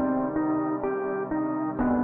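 Instrumental intro of a rap beat: a plucked-string melody stepping from note to note about twice a second, with a low hit near the end.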